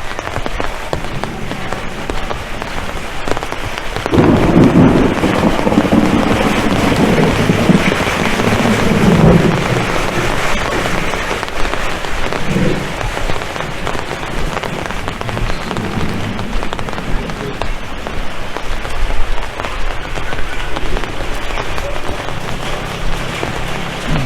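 Heavy rain falling, a dense steady hiss of drops hitting the ground. From about four seconds in, a louder low rumble rises under it for several seconds, then fades back into the rain.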